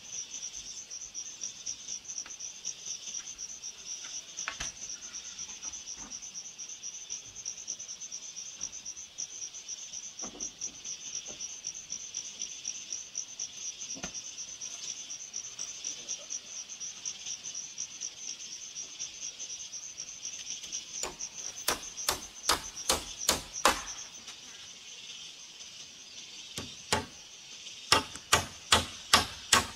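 A constant high-pitched insect trill, pulsing rapidly, which stops about two-thirds of the way in. From about 21 seconds a claw hammer strikes a wooden rafter joint in a quick run of blows, and near the end there is a second run.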